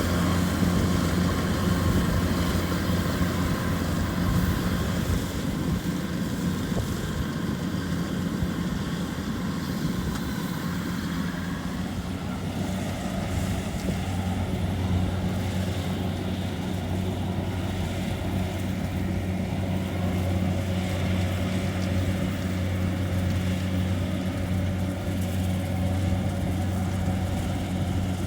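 Kubota rice combine harvester's diesel engine running steadily under working load, a continuous low drone with the machine's threshing noise over it.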